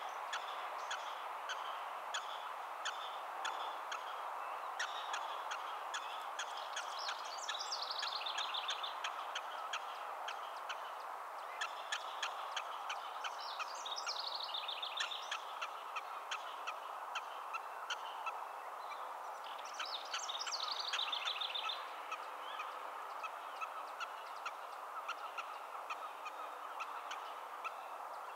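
Black-tailed prairie dog alarm calls: a long run of short, sharp chirping barks repeated a couple of times a second, with three descending trilled calls about six seconds apart, over a steady hiss.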